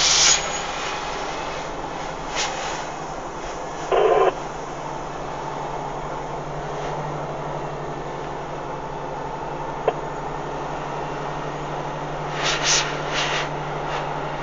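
Western Star log truck's diesel engine running, heard from inside the cab as the truck moves off, a steady low drone that builds a little about six seconds in. A short burst of noise cuts in briefly about four seconds in.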